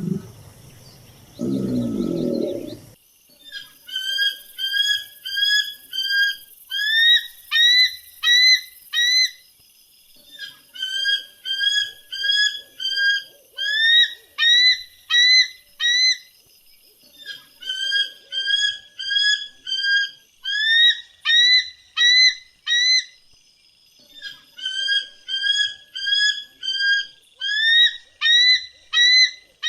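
A bird singing about four phrases of clear whistled notes, each a run of even notes followed by quicker upswept ones, with short pauses between phrases. A low animal roar ends briefly near the start.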